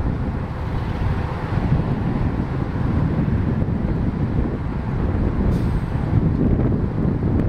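Wind rumbling on the microphone over the engine of an approaching 1988 MCI TC40-102N Classic diesel transit bus, with nearby car traffic.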